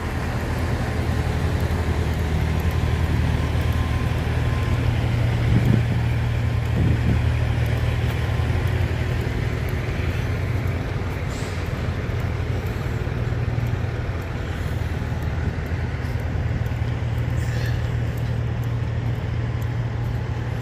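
Steady low rumble of semi-truck diesel engines with traffic noise.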